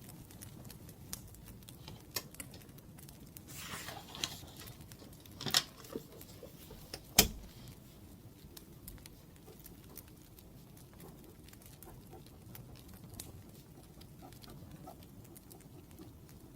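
Scattered small crackles and pops of a wood fire, with a brief scratchy rustle about four seconds in and two sharp taps around five and a half and seven seconds in.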